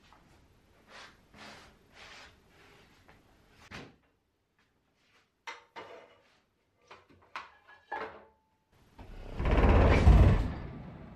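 Light knocks and clicks of a pottery wheel and its cord being handled, then about nine seconds in the Nidec electric pottery wheel is dragged across wooden floorboards, a loud scrape lasting about a second and a half.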